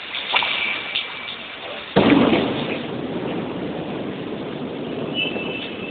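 Steady rain, then a sudden loud thunderclap about two seconds in that rolls away in a long rumble.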